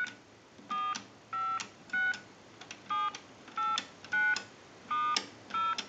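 Touch-tone keypad of a single-slot payphone being dialed key by key in a keypad test: about nine short DTMF beeps, roughly one every two-thirds of a second. Each beep is a pair of tones, and the pair changes from key to key.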